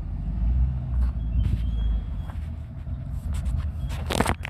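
A steady low motor rumble, like an engine running nearby. Near the end come a few clicks and a short rustle as the phone camera is handled.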